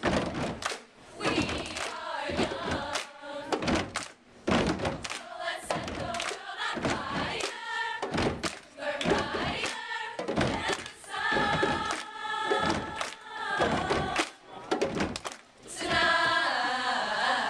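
Large women's choir singing in harmony over frequent percussive thumps, ending on a loud held chord near the end.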